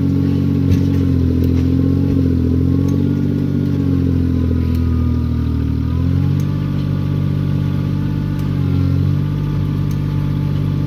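Kioti CK2610 compact tractor's three-cylinder diesel engine running steadily under load as the tractor tries to drive out of deep mud; its note sags briefly about six seconds in and then steadies.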